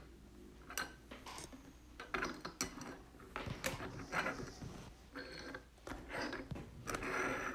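Light clicks and rustling of hard plastic trading-card holders being handled and stood up in display stands, a few scattered taps a second.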